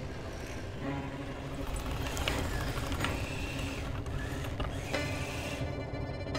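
Designed robot machinery sounds: a steady low mechanical rumble with a few sharp metallic clicks and two short high whines of small motors.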